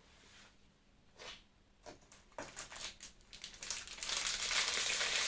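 Packaging crinkling and rustling as a small item is unwrapped by hand: scattered rustles at first, turning into steady, louder crinkling for the last second or so.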